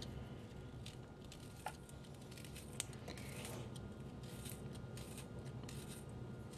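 Faint, irregular small scrapes and clicks of a small knife cutting a garlic clove held in the hand, with bits of garlic dropping onto the mushrooms in the pan.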